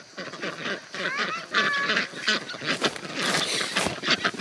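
A flock of white domestic ducks quacking and chattering in quick, overlapping calls as they crowd around a feed bowl, with a short burst of rustling a little after three seconds in.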